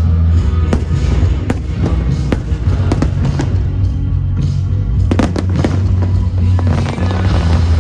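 Fireworks shells bursting in a series of sharp bangs, with a quick cluster of several reports about five seconds in, over loud pyromusical soundtrack music with a heavy bass.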